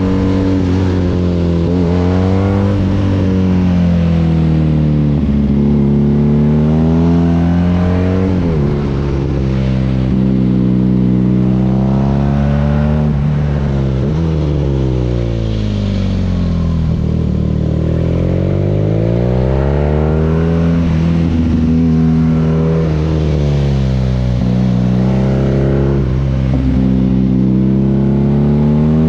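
BMW R nineT's boxer twin through an Akrapovic exhaust, accelerating and easing off again and again, its pitch climbing and falling, with two longer drops in pitch where it slows down before pulling away again.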